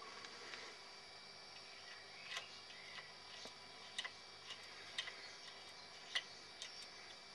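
Faint, irregular light clicks, a few over several seconds, from the carburettor float tickler of a Fichtel & Sachs Stamo 202 stationary engine being pressed by hand to flood the carburettor before starting. The loudest click comes about six seconds in.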